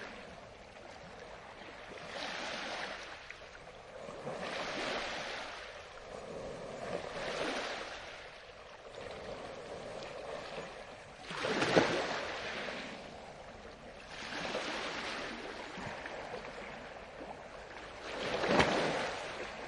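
Water washing and sloshing in repeated swells about every two to three seconds, with two louder splashes, one about twelve seconds in and one near the end.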